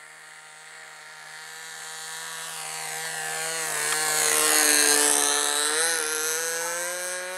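Radio-controlled model airplane's small glow engine buzzing at high revs as the plane makes a low pass. It grows louder to a peak about five seconds in, its pitch dips and rises again, then it fades.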